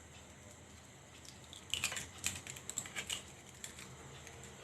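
Light, irregular clicks of a kitchen utensil against a mixing bowl, starting about two seconds in and lasting about a second and a half, as eggs are beaten into creamed butter and sugar for a sponge cake batter.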